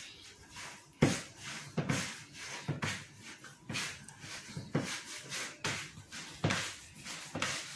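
Hands mixing and kneading wet, sticky cornmeal-and-flour festival dough in a plastic bowl. It makes irregular soft slaps and knocks about once or twice a second, the sharpest one about a second in.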